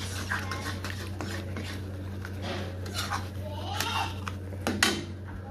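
A metal spatula scraping and clattering against a kadhai, repeated strokes as eggs are stirred and broken up into a tomato-onion masala for egg bhurji.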